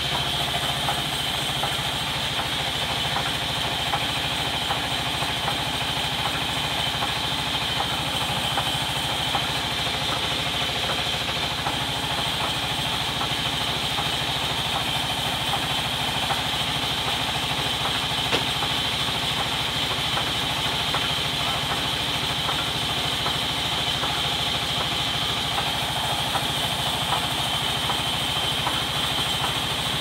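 Band sawmill running steadily: the machine's drive drones evenly under a constant high whine.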